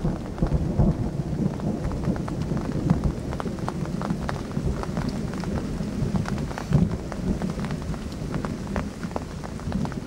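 Thunder rumbling low and slowly dying away, with rain falling and single drops ticking close to the microphone.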